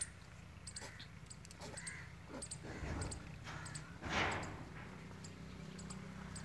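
A few harsh animal calls, spaced out, the loudest about four seconds in, over faint high chirps.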